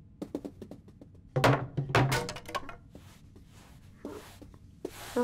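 Cartoon sound effects of a cat moving about a room: a run of quick light taps, then two louder thumps about a second and a half and two seconds in, and scattered knocks near the end as a broom is dragged along the floor.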